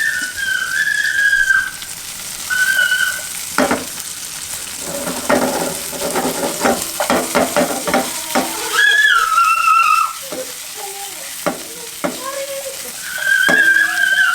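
Rib eye steak sizzling in a hot pan, with a run of clicks and knocks from utensils in the middle. A high, wavering whistle comes and goes several times over the sizzle.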